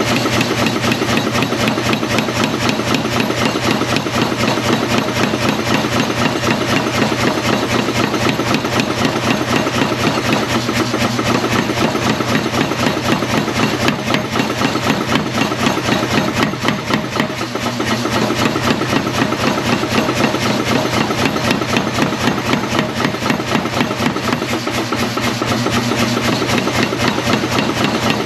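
Blacksmith's power hammer running and striking in rapid, steady blows as it draws out a mild steel bar, over a constant machine hum. The blows ease off briefly about two-thirds of the way through, then carry on.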